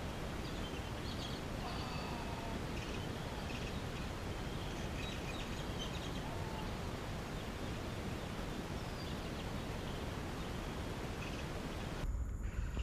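Outdoor background at a pond bank: a steady hiss with faint, scattered bird chirps. Near the end it changes abruptly to a louder low rumble.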